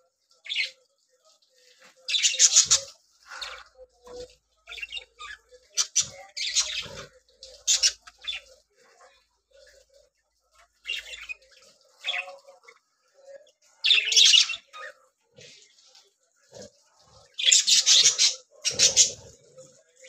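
Budgerigars chattering in an aviary: short, harsh chirps and squawks in scattered bursts, the loudest about two seconds in, around fourteen seconds, and near the end.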